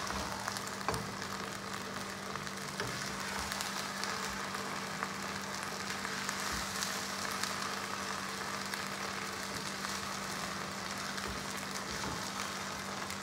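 Sarson ka saag (mustard greens) sizzling and crackling in a hot wok on a gas burner: an even hiss with scattered small pops, over a steady low hum.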